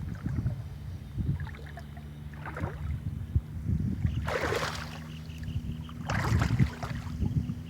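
Wind buffeting the microphone over a steady low motor hum, as from a boat's engine, with two short hissing bursts about four and six seconds in.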